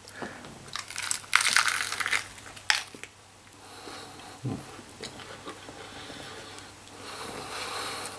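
A person biting into and chewing a roll of crisp iceberg lettuce, with loud crunching for the first few seconds, then quieter chewing.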